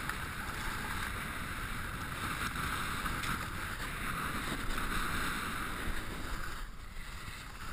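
Snowboard sliding fast over groomed snow with wind rushing on the camera microphone: a steady hiss and rumble that eases slightly near the end.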